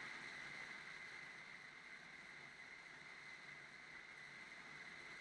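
Near silence: a faint steady hiss with a thin, high, even hum.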